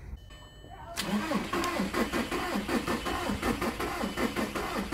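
Starter cranking the 2000 Jetta TDI's 1.9-litre four-cylinder turbodiesel, starting with a click about a second in and then a steady rhythmic chug without the engine catching. The cranking is weak, on a run-down battery.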